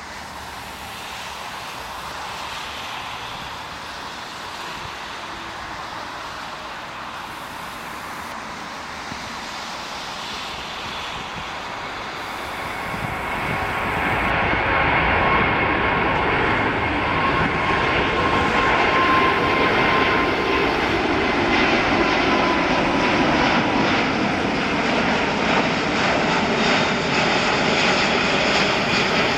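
Airbus A380's four jet engines at takeoff power, a rushing noise with a steady whine. It grows louder, rising sharply about halfway through and staying loud to the end.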